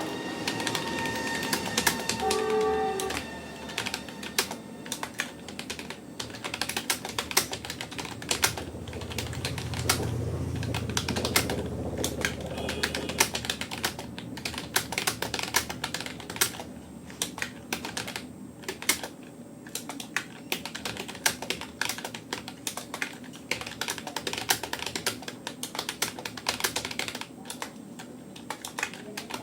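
Fast touch-typing on a Rapoo computer keyboard: a rapid, uneven stream of key clicks, at a pace of about 57 words a minute.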